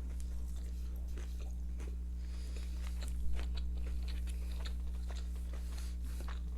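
Close-miked chewing and biting of food, wet little clicks and crunches, over a steady low electrical hum.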